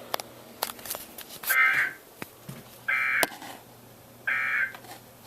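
Emergency Alert System end-of-message data bursts on NOAA Weather Radio: three short, identical buzzy bursts about a second and a half apart, the digital code that closes the alert after the warning text. A few faint clicks of radio static come before and between them.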